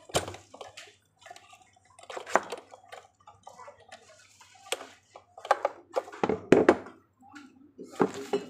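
Hard plastic parts knocking and clicking as a plastic tube leg is pushed into the socket of a moulded plastic high-chair seat and the seat is handled and turned over; irregular knocks, the loudest cluster a little past the middle.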